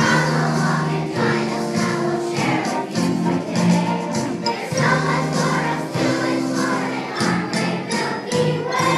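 Children's choir singing a song together over musical accompaniment with light percussion strikes.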